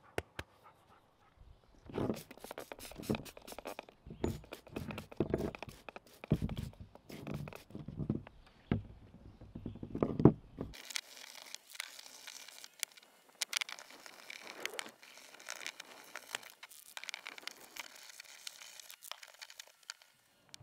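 A hand brush scrubbing the wet cast-iron head pieces of an old split-head mallet on a wooden bench, in quick rough strokes. About eleven seconds in the sound turns thinner and hissier, like a rag rubbing the parts down.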